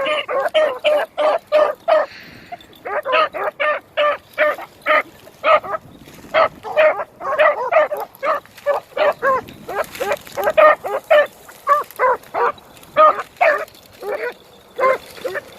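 Beagles baying on a rabbit's trail: short, pitched barks coming two or three a second, with a brief lull about two seconds in.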